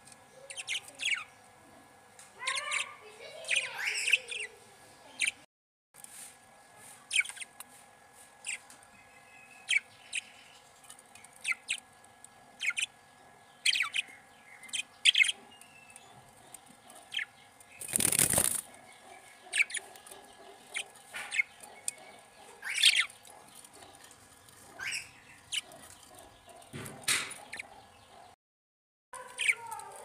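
Budgerigars chirping: many short, high chirps scattered throughout, with a run of rougher calls a few seconds in. About eighteen seconds in, a brief loud rustle breaks in.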